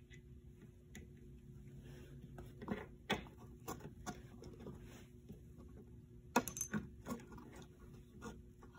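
Light clicks and taps of small metal parts being handled and fitted by hand: the self-propel drive gear and collar going onto a Honda lawnmower's wheel axle, with a few sharper clicks about six to seven seconds in.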